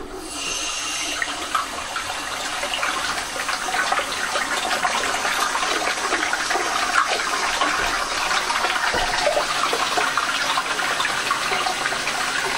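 A 1970s Armitage Shanks toilet with a siphonic flush being flushed: a steady rush of water pouring and swirling into the bowl, a full flush.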